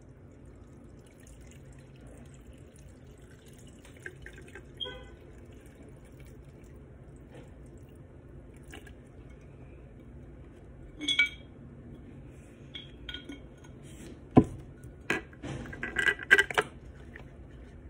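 Water poured from a plastic container into a glass jar, a faint steady trickle. Near the end comes a sharp knock, then several clinks and taps against the glass as the plant in the jar is pushed into place.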